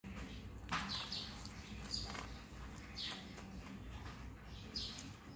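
A baby macaque giving several short, high-pitched squeaks, a second or two apart.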